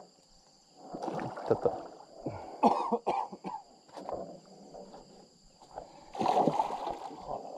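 Hooked giant snakehead (Channa micropeltes) thrashing at the surface beside a boat: water splashing in three irregular bursts.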